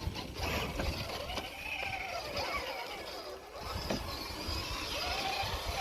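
Electric motor and drivetrain of an RC rock crawler whining, the pitch rising and falling as the throttle is worked.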